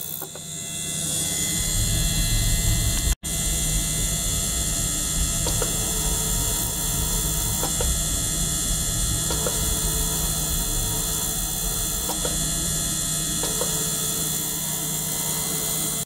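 Small ultrasonic cleaner running with small liquid-circulation pumps in its water tank: a steady electrical hum with hiss and a few faint clicks. The sound drops out briefly about three seconds in.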